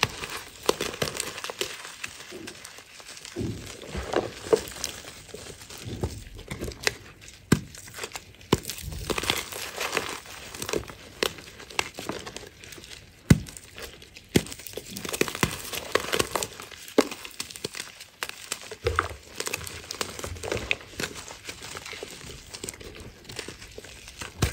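Crumbly blocks of reformed chalk crushed and crumbled between bare hands: dry crunching and crackling with many small sharp cracks, the loudest crack about halfway through.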